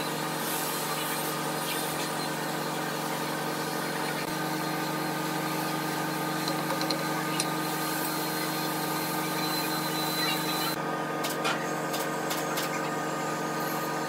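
Tool-and-cutter grinder running steadily, its motor and grinding wheel giving a constant hum of several tones, with a few light clicks about three-quarters of the way through.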